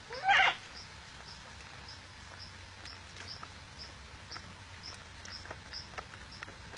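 A single loud, short squeak that rises sharply in pitch, just after the start. Through the rest there is a faint insect chirp repeating about twice a second, with a few soft clicks and rustles.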